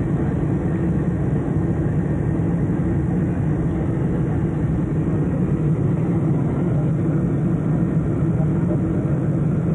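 Steady drone of a jet airliner's engines and rushing airflow heard inside the passenger cabin, with a deep even hum.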